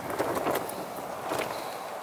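A metal utensil clicking and scraping against an open tin as tinned sausages are lifted out, with rustling of handling. There are several short clicks over a steady background hiss.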